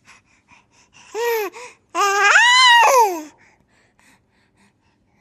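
A baby hippo's squeaky, laugh-like calls: two short arching calls, then one longer call that rises and falls, with faint clicks between them.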